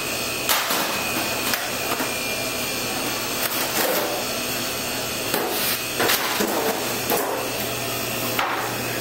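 A steady rushing, fan-like noise with a low hum, broken by several short knocks.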